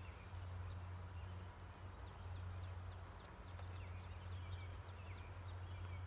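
Footsteps of a person and dog walking on a paved road, with birds chirping in the background over a steady low hum.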